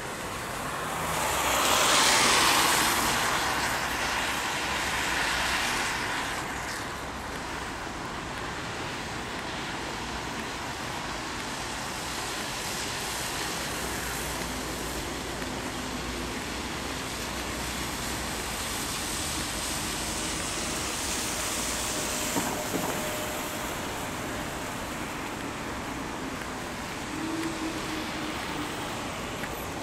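Road traffic passing on wet pavement, with tyre hiss; the loudest car goes by about two seconds in, with smaller swells as others pass later.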